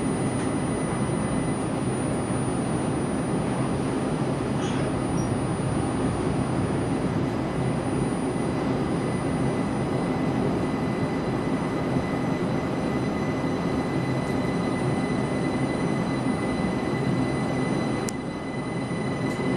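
Steady cabin running noise of the Linimo HSST maglev train gliding along its elevated guideway, with a faint steady high whine over the hum. About 18 seconds in there is a single click and the noise briefly drops.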